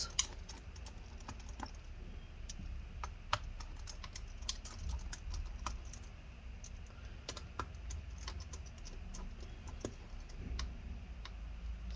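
Faint, irregular small clicks and taps of a pentalobe (P5) precision screwdriver working the tiny screws out of a MacBook Air's aluminium bottom cover, along with the screws being picked out and handled.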